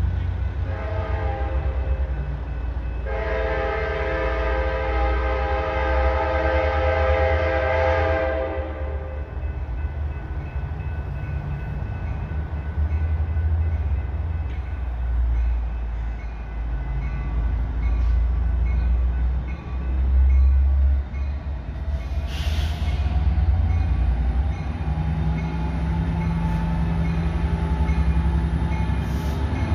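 An approaching train's multi-note horn sounds a short faint blast, then one long blast of about five seconds, over a steady low rumble. Near the end a short hiss is followed by a slowly rising whine as the train draws close to the platform.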